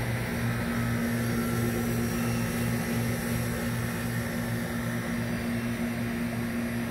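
Steady machine hum with a low drone that pulses evenly, about three times a second.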